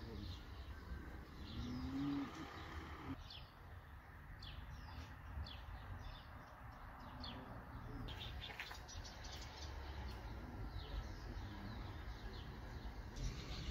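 Small birds chirping: a string of short, quick, falling calls, over a steady low background rumble.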